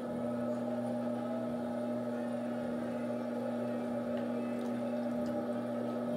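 Electric potter's wheel running with a steady hum, with wet hands swishing on the spinning clay.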